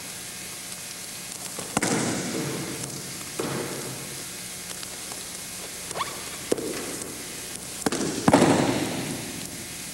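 Bodies thudding onto a padded mat as aikido partners are thrown and take their falls. There are about five thuds: a strong one about two seconds in, smaller ones in between, and the loudest near the end, over a steady hiss.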